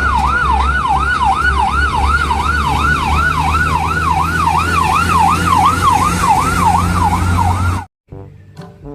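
Siren wailing in fast rising-and-falling sweeps, about three a second, over a steady low engine rumble; it cuts off suddenly near the end.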